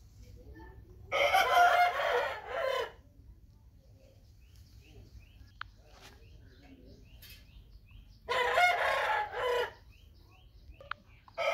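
Gamecock crowing twice, each crow lasting under two seconds, with a third crow starting at the very end.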